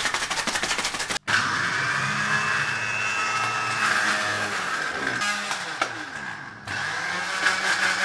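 Countertop electric blender grinding digestive biscuits into crumbs. A quick rattle of biscuit pieces comes first, and the motor whine starts about a second in. The motor winds down about five seconds in and spins up again shortly before seven seconds, as it is pulsed.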